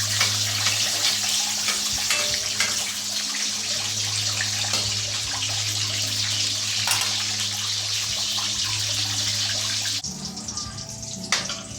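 Water running from a kitchen tap, a steady hiss with a low hum under it, cut off suddenly about ten seconds in.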